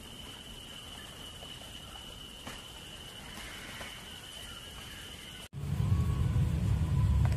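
Outdoor wildlife ambience: a steady, high-pitched insect drone over a soft background hiss. About five and a half seconds in it cuts off suddenly into a louder low rumble.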